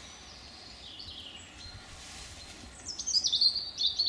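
Small songbirds singing: soft, sweeping phrases at first, then a louder run of quick chirps and trills from about three seconds in, over a steady low background noise.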